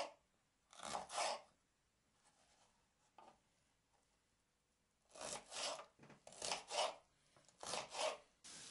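Kitchen knife slicing and dicing a red bell pepper on a wooden cutting board: short scraping strokes in twos and threes, a pause of a few seconds, then several more quick groups of cuts.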